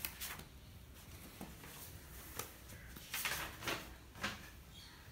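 A few short scrapes and taps in a quiet room, the busiest cluster about three seconds in, over a low steady hum.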